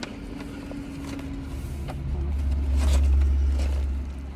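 Low vehicle rumble that swells about two seconds in and fades toward the end, heard from inside a car, with a faint steady hum before it.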